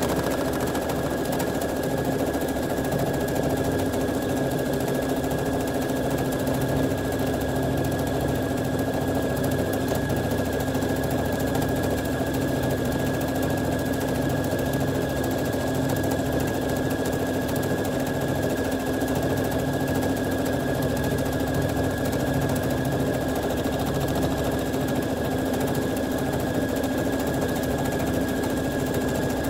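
Domestic sewing machine running at a steady speed without stopping, stitching through water-soluble film layered over fabric offcuts, with a steady motor whine over the rapid needle action.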